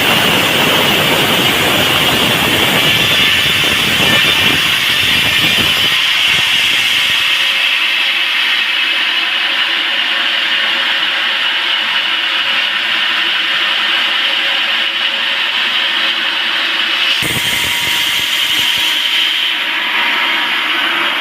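Sawmill saw running steadily and loudly, cutting a large round teak log; the low rumble drops away about seven seconds in, leaving a steady high-pitched whine.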